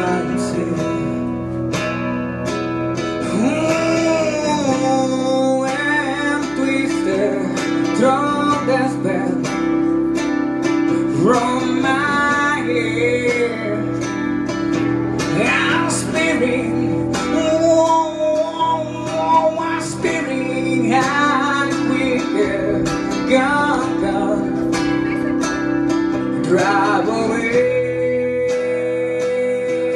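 A man singing live into a handheld microphone, with an acoustic-electric guitar playing chords beneath. The sung line holds long, wavering notes over the steady chords.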